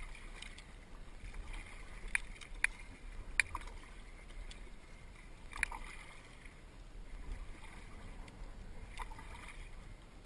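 Kayak paddle strokes splashing in calm water every second or two, with a few sharp clicks and knocks in among them.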